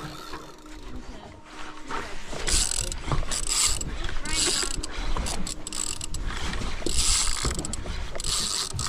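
Spinning reel being cranked against a hooked fish, its gears whirring and clicking in repeated surges roughly once a second.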